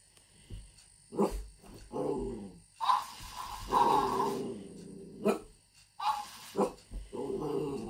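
Alaskan malamute growling and giving short barks and yaps, several separate vocalisations. A talking hamster toy plays the sounds back in a higher, squeaky voice.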